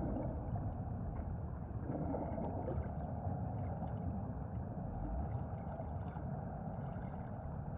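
Muffled underwater ambience: a steady low wash of water noise with a few faint clicks.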